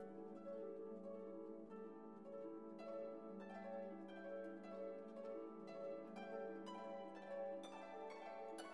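Quiet instrumental background music: plucked notes in a steady rhythm over a held low note.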